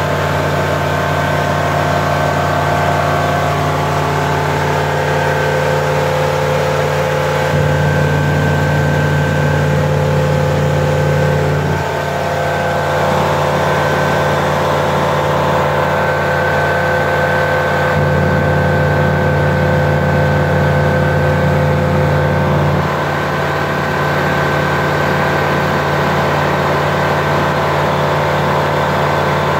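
Flight Design CTLS light aircraft's Rotax 912 flat-four engine and propeller droning steadily in cruise, heard inside the cabin. The low hum swells slightly twice.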